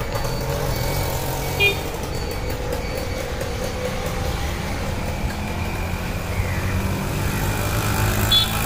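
Busy street traffic: vehicle engines running in a steady low rumble. Short high-pitched tones come through twice, about a second and a half in and again near the end.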